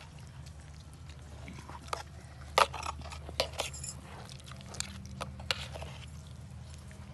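Metal spoons clinking against a steel platter of food as people eat: a handful of sharp clicks, the loudest about two and a half seconds in, over a steady low hum.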